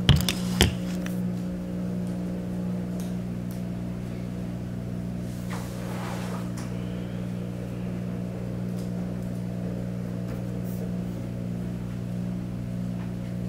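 A steady low hum built of several fixed tones, with two sharp clicks right at the start.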